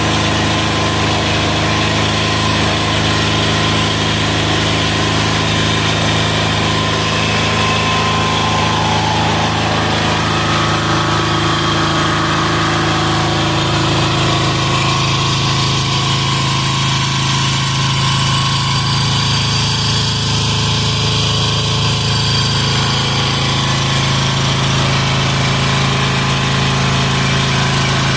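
186FA single-cylinder air-cooled diesel engine running steadily on filtered waste vegetable oil.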